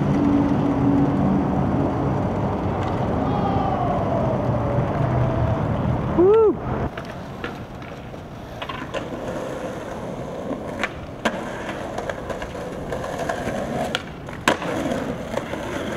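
Skateboard wheels rolling on street asphalt with a steady rumble, broken just after six seconds by a brief loud squeal. Then the wheels roll over plaza paving more quietly, with sharp clacks every second or two as they cross the joints.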